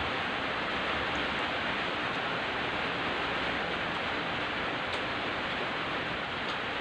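Steady, even hiss of background noise, with one faint click about five seconds in.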